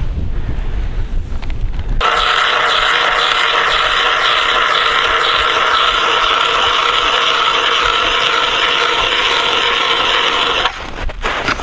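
Ice auger drilling a hole through lake ice: a steady, even grinding that starts abruptly about two seconds in and stops sharply near the end, followed by a few scattered clicks.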